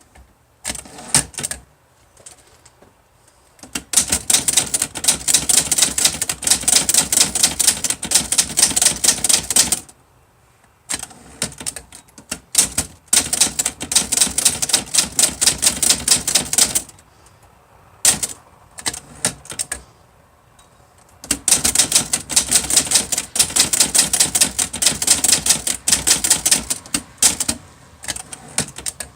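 Olivetti-Underwood Studio 44 manual typewriter being typed on: fast runs of typebar strikes lasting several seconds each, three of them, separated by short pauses and scattered single keystrokes.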